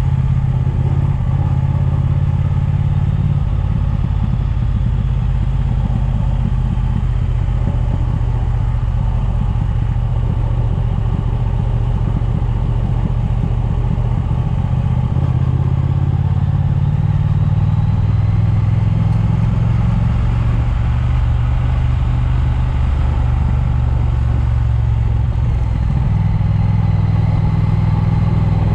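Triumph motorcycle engine running while riding, with wind noise on a chest-mounted microphone. The low engine note shifts up and down a few times.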